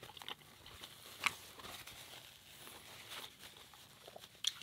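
Quiet, scattered small clicks and soft rustling of close-miked eating and food handling, with one sharper click about a second in.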